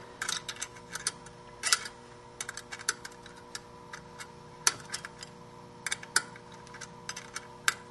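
A 3/8 wrench clicking and ticking in short, irregular bursts as the bolts holding the lock washer on a CVT drive clutch are snugged down, with a faint steady hum underneath.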